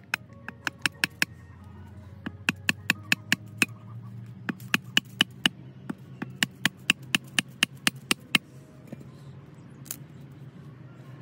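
Machete chopping at a thin woody stem at ground level: four quick runs of sharp strikes, about five a second, stopping after about eight seconds, with one more knock near the end.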